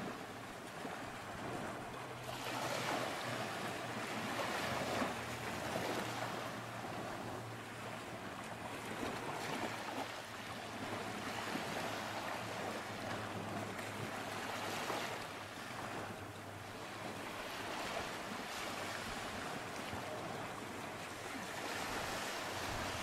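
Ocean surf washing ashore, a steady rushing that swells and fades every few seconds, with a faint low hum underneath.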